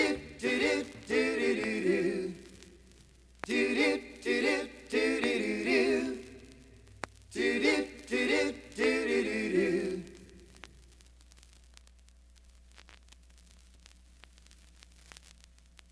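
A small folk group singing unaccompanied in harmony: three sung phrases, the last fading out about ten seconds in. Then the quiet run-out between tracks on a vinyl LP, with faint surface noise and scattered crackle clicks.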